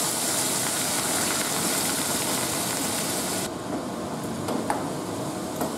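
Hot frying pan of spiced potatoes sizzling with a steady hiss as boiled peas are tipped in; the hiss cuts off suddenly about three and a half seconds in. A wooden spatula stirring follows, with a couple of light knocks against the pan.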